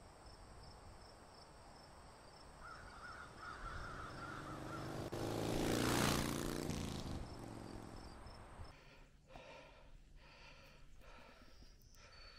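A whoosh sound effect that swells to a peak about six seconds in with a low rumble under it, then fades: a logo-intro sting. Before it, faint woodland background with a crow cawing; after it, faint regular footsteps on a dirt trail.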